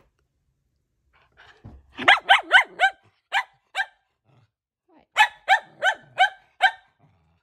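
Shetland sheepdog barking in short, sharp barks. About two seconds in comes a quick run of four, then two single barks, then a run of five near the end.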